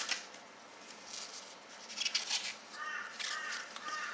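A crow cawing, a run of short evenly spaced calls about two or three a second, starting a little under three seconds in. Before that come brief crinkly rustles, most likely a foil trading-card packet being torn open and handled.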